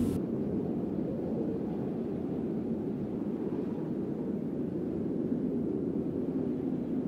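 Steady low rumbling noise with no distinct events, after music cuts off right at the start.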